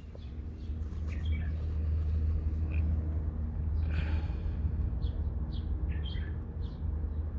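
Small birds chirping now and then, mostly in the latter half, over a steady low rumble.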